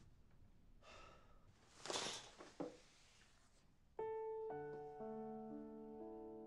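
Rustling of a duvet as someone sits up in bed, with a soft knock. About four seconds in, a gentle piano melody of held notes begins.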